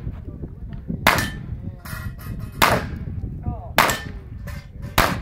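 Four revolver shots fired one at a time, each about a second or a second and a half apart, each a sharp crack that rings out briefly.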